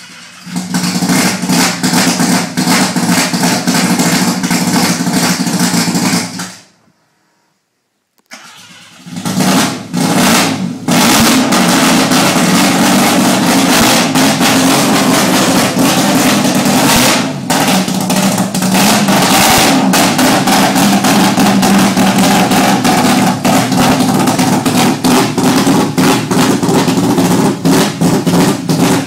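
Mazda 12A peripheral-port rotary engine in a Datsun 1600 starting up and running very loud, its first start since the engine conversion. It cuts out after about six seconds, then fires again a couple of seconds later and keeps running.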